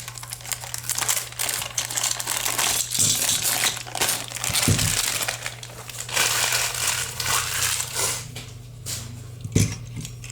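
Plastic packaging crinkling and rustling in irregular bursts as toy parts are pulled out of it, easing off near the end, with a couple of light knocks.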